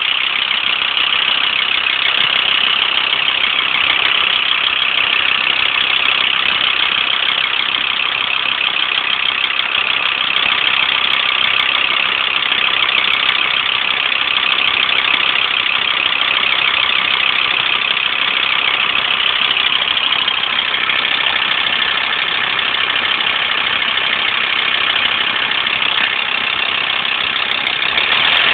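Volkswagen LT35 van engine idling steadily shortly after a cold start, with a rattle running through it. The owner cannot trace the rattle; forum advice puts it down to a belt.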